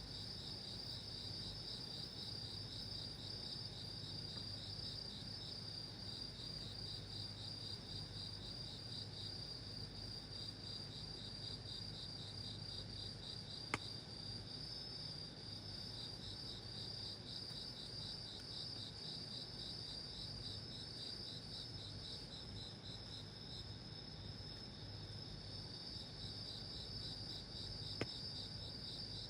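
Crickets chirping in a steady, pulsing chorus, with two sharp clicks, one about halfway through and one near the end.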